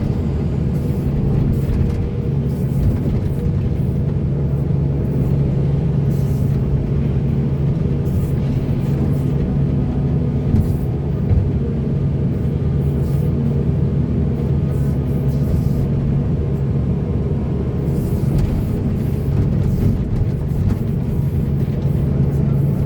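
Heavy diesel engine of earthmoving machinery running steadily under load, a low even hum with light clatter at times.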